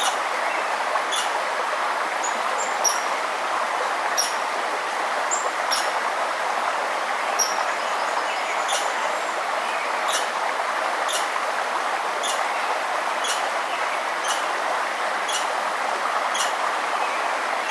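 Steady rush of a flowing river, with a bird repeating a short, high call about once a second.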